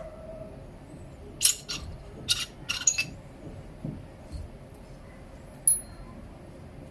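Light clinks and knocks of glass or kitchenware being handled: a quick run of sharp taps from about one to three seconds in, a few softer ones after, and a single ringing clink near six seconds.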